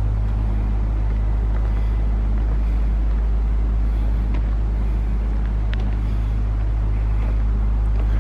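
An engine running steadily with a constant low hum, unchanging throughout.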